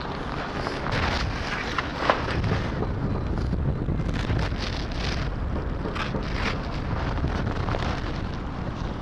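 Wind buffeting the microphone, with irregular scraping and crunching of wet sand as a hole is dug and a perforated stainless steel sand scoop is worked into it; one sharp click about two seconds in.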